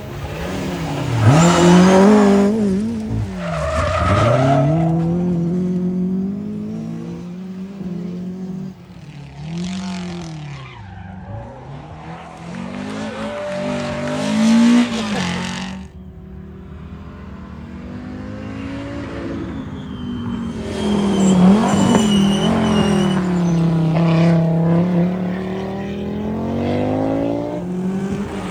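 Historic rally cars driven hard on a stage, their engines revving up and dropping back through gear changes as they come past. The engine note rises and falls several times, loudest about a second in and again about three quarters of the way through.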